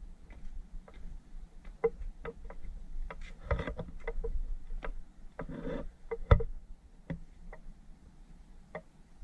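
Footsteps scuffing on a concrete path and gritty ground, heard as irregular clicks and ticks. Two short rustles come about three and a half and five and a half seconds in, with a sharp knock just after six seconds.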